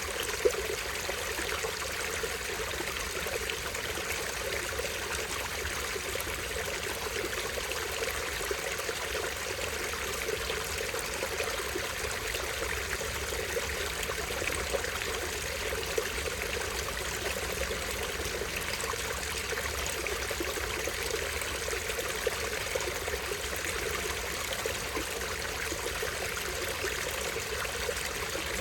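Small stream falling over a tiny waterfall: steady splashing and trickling water.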